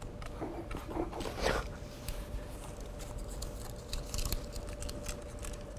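Small irregular clicks and taps from handling a miniature camera model, a replica of the Canon 1D X Mark II, over a faint steady hum.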